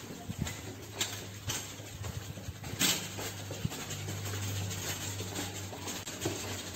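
Footsteps of boots on a concrete floor, a short sharp step every half second to a second, the firmest about three seconds in, over a steady low hum.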